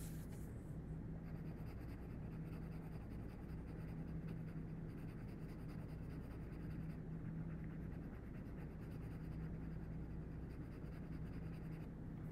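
Pencil shading on paper: soft, continuous scratching of graphite strokes over a low steady hum, with a brief rustle of the sheet being moved at the start.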